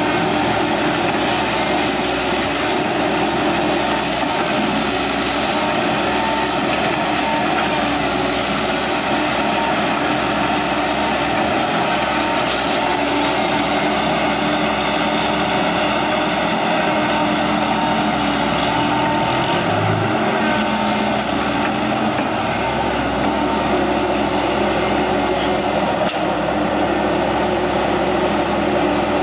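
Diesel engines of an excavator and a six-wheel dump truck running steadily, with an even drone throughout.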